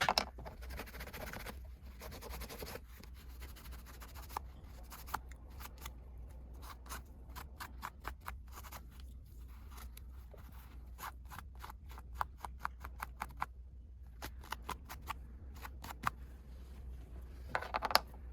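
Scissors cutting plastic, making runs of quick, sharp snips with some scratchy handling noise between them.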